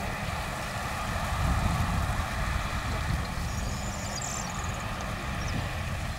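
Wind buffeting the camera microphone, an uneven low rumble that swells and fades in gusts, over a faint steady hum, with a few faint high chirps about four seconds in.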